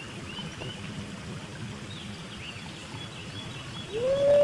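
Steady hiss of light drizzle on a pond, with faint bird chirps. Near the end, a loud drawn-out tone rises and then holds.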